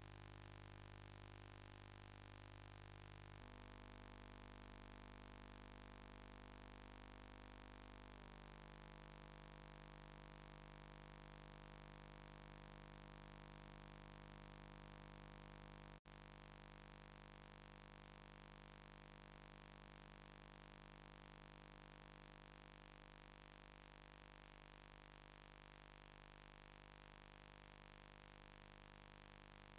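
Near silence: a faint, steady hum and hiss, cut by a brief dropout about halfway through.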